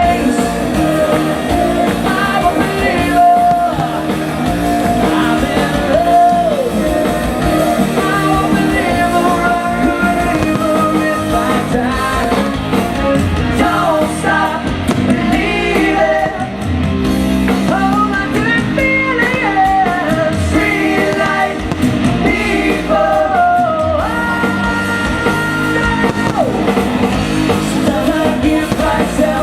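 Live rock band playing with a lead singer: guitar, bass and drums under a sung melody.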